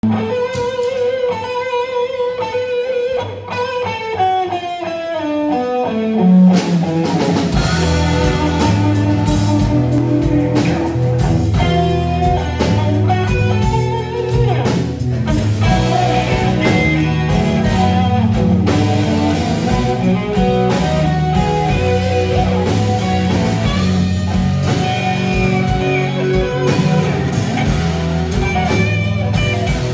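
Live electric blues band: an electric guitar alone plays a descending run of notes, then at about six and a half seconds the bass and drum kit come in with the other guitars in a slow blues groove.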